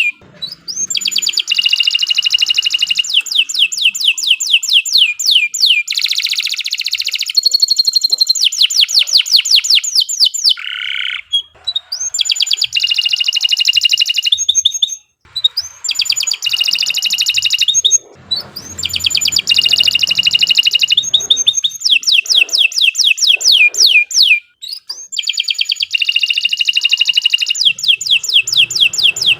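Domestic canary singing a long song of fast, high-pitched trills, each phrase a rapid run of repeated notes, with a few brief pauses between phrases.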